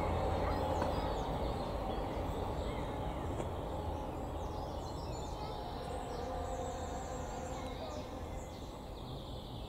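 Outdoor ambience of a car engine fading away as the car drives off, with small birds chirping now and then.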